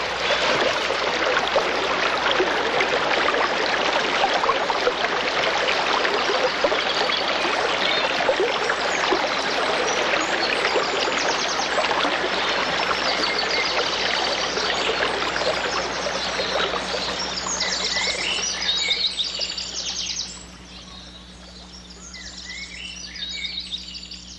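Steady rush of water with birds chirping over it; the water noise cuts off suddenly about twenty seconds in, leaving only fainter birdsong.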